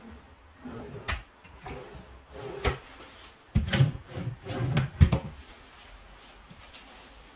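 Kitchen cabinet drawers sliding open and shut several times, with short runner noises and knocks as they close. The loudest knock comes a little after five seconds in.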